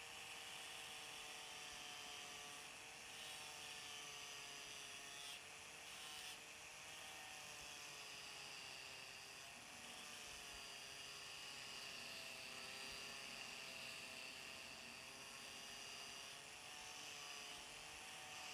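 Angle grinder running steadily with its disc on a steel knife blade, grinding off rust; a faint, continuous whine whose pitch wavers slightly as the disc is pressed into the metal.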